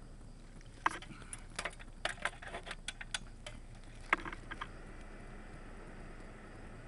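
Sharp, irregular clicks as metal test-probe tips, carrying current from a computer power supply, tap on and off the ends of a AAA battery. A dozen or so come over about four seconds, then they stop.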